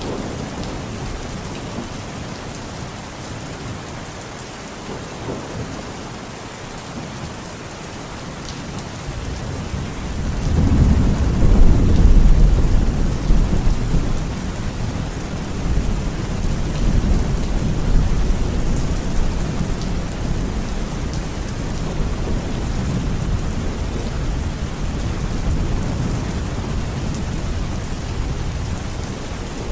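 Steady rain falling, with a long roll of thunder that builds about a third of the way in, peaks, then rumbles away slowly under the rain.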